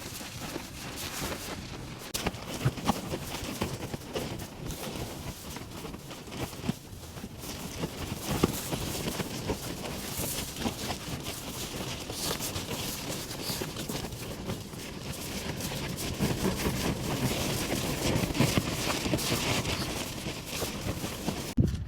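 Strong wind blowing steadily, with a dense patter of short taps and clicks throughout.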